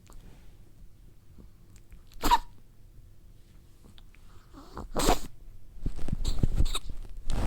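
Chihuahua snoring in its sleep: two short, sharp snores about three seconds apart, then a quick run of smaller clicks and breaths near the end.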